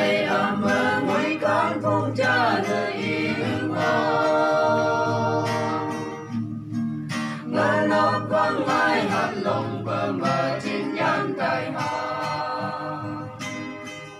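A small mixed group of men and women singing a Phom gospel song together, accompanied by an acoustic guitar. The voices hold a long note about four seconds in.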